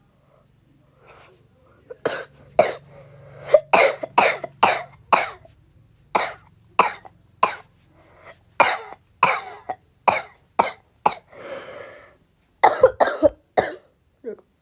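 A person coughing over and over in quick runs of short, sharp coughs, starting about two seconds in.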